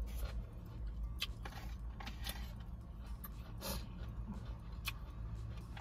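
A person chewing a mouthful of takeout food, with scattered small clicks of mouth and fork sounds over a steady low hum.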